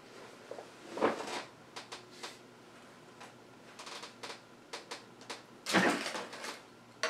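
Quiet handling noises of a sheathed katana being turned in the hands: scattered light taps and rubs, a louder knock about a second in, and a brief scrape near the end.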